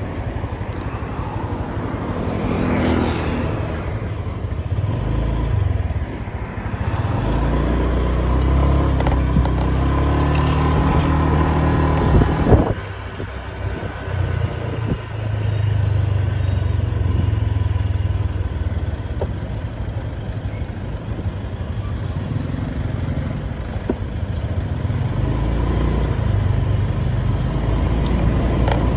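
Road traffic heard from a moving bike on a town street: motor vehicle engines running steadily. About twelve seconds in there is a brief loud knock, the engine sound drops for a few seconds, then it picks up again.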